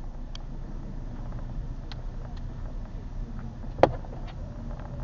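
Low, steady rumble of a car's engine and tyres heard from inside the cabin as the car rolls slowly forward, with a few sharp clicks, the loudest a little under four seconds in.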